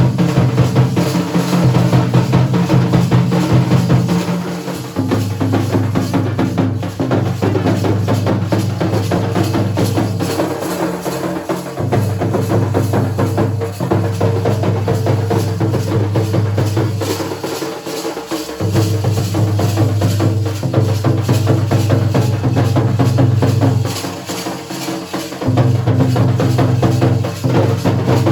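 Dhol and nagada drums played in fast, dense rhythm, with a low held tone underneath that shifts in pitch every few seconds.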